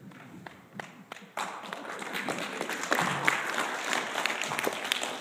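Audience applause: a few scattered claps, then full clapping breaking out about a second and a half in.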